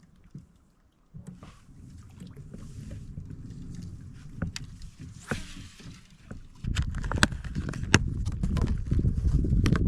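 Scattered sharp clicks and knocks of fishing gear being handled in a small boat. About two-thirds of the way through, a steady low rumble comes in suddenly and continues with a few more clicks over it.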